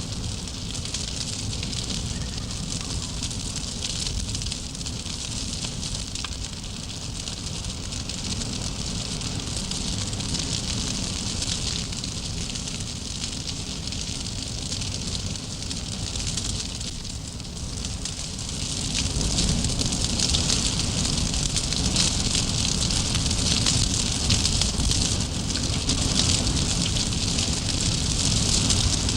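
Large wood fire crackling steadily as it burns away the timber props under a chimney's undercut base. It grows louder about nineteen seconds in.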